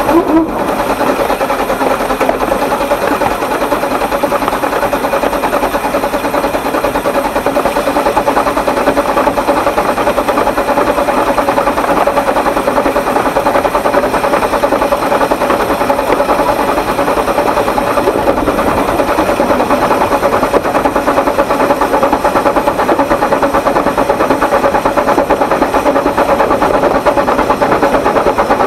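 Narrow-gauge (12¼-inch) steam locomotive built by the Exmoor Steam Railway, heard from the footplate as it runs steadily and works hard with four coaches on a 1 in 60 gradient. A steady tone runs through the running noise.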